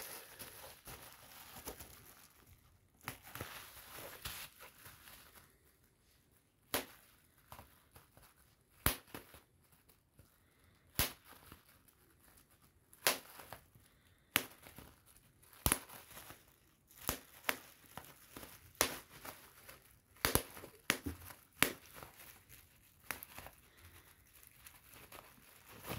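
Bubble wrap being popped by hand, one bubble at a time: a dozen or more sharp single pops about one to two seconds apart, with plastic crinkling as the sheet is handled.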